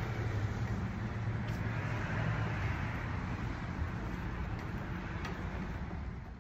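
Steady low rumble of vehicle engines and traffic, with a light hiss above it.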